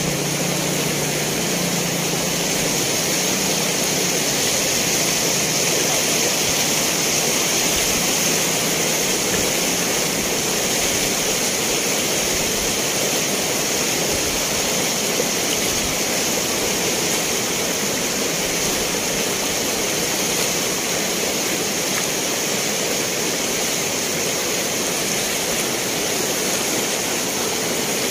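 Floodwater rushing steadily, an even, unbroken noise.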